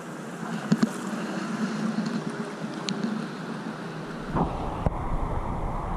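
Seawater sloshing and lapping inside a sea cave around a kayak, with a couple of sharp knocks about a second in. A low rumble sets in about four seconds in.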